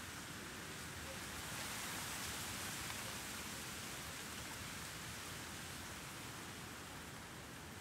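Outdoor breeze: a steady, even rushing that swells a little about two seconds in and slowly eases off, with very light city noise underneath.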